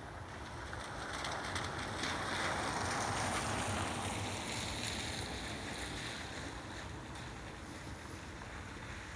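Wind outdoors: a gust of rushing noise swells about a second in and fades a few seconds later, over low buffeting of wind on the microphone.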